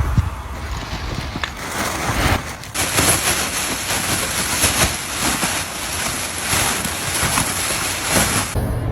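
Steady rushing, hissing noise like moving air, with a light crackle through it. It grows stronger about three seconds in and cuts off suddenly shortly before the end.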